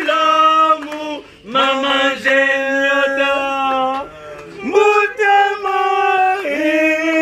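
A voice singing long, steady held notes in phrases, stepping from note to note, with short breaks about a second and about four seconds in.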